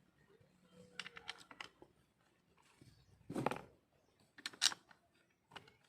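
Light clicks and clinks of tools and small metal parts being handled, in small clusters, with a duller knock about three and a half seconds in.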